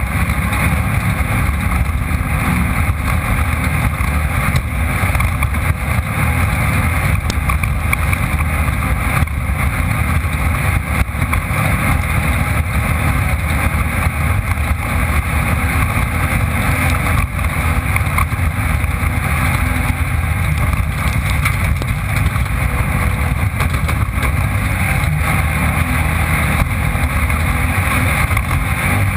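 Off-road race vehicle's engine running hard at speed, heard through a camera mounted on board, with a steady loud mix of engine and rushing noise.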